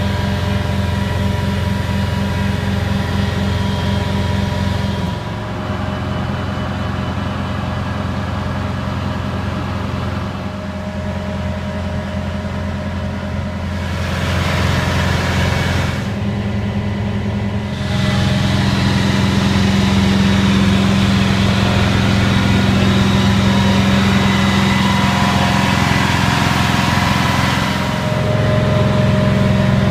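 Detroit 450 hp diesel engine of a 1991 Pierce Arrow aerial ladder fire truck running steadily, with its level and tone shifting several times.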